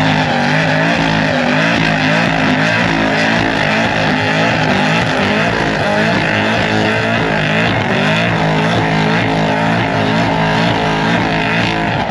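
Loud high-performance car engine running, its revs wavering up and down.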